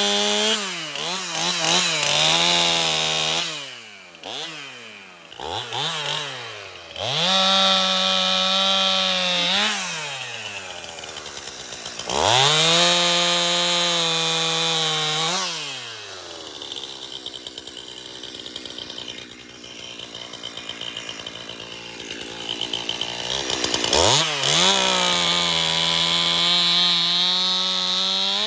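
Stihl MS 271 two-stroke chainsaw cutting up a small walnut trunk for firewood. It revs to full throttle and holds there for a few seconds at a time through each cut, then drops back to idle between cuts, with one longer idle stretch partway through.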